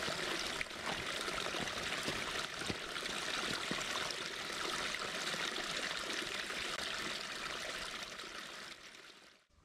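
Small forest stream trickling and splashing over rocks, a steady rush of running water close by that fades out near the end.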